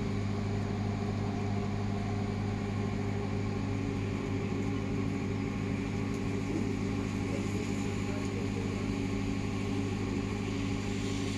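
Ship's machinery running with a steady low, even hum and overtones above it, unchanging throughout.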